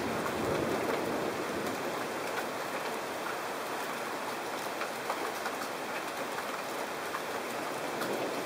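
Heavy rain pouring steadily onto wet pavement and puddles, with scattered close drops ticking.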